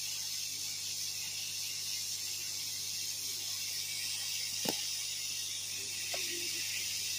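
Steady faint hiss with a low steady hum underneath, and a single small click about four and a half seconds in.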